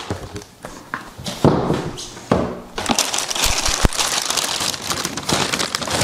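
Tissue paper and plastic wrapping rustling and crinkling as a boot box is unpacked, denser from about three seconds in, with a couple of dull knocks in the first half.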